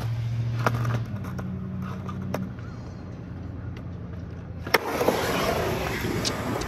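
Skateboard on a concrete skatepark bank: a few light clicks of the board at first, then a sharp clack about two-thirds of the way in as it drops down the bank, followed by the wheels rolling steadily over concrete. A low steady hum lies under the first part.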